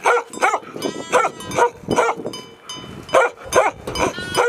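Bhote dog, the Himalayan mastiff-type guard dog of Nepal, barking repeatedly, about eight barks in quick succession.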